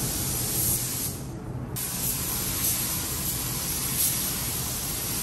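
Gravity-feed compressed-air paint spray gun hissing steadily as it sprays paint onto a car's hood. The hiss cuts out for about half a second about a second in, as the trigger is let off, then resumes. A steady low hum runs underneath.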